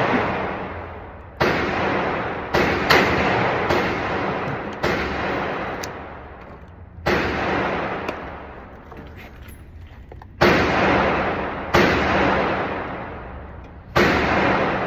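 Firearm shots fired one at a time at an uneven pace, about nine in all, with long echoing tails that fade over a second or two. Several come in quick succession in the first five seconds, then they space out.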